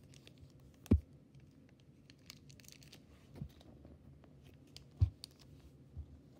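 Dull thumps of hands bumping near the microphone, four in all, the loudest about a second in and another about five seconds in, with faint crinkling of a plastic bag between them.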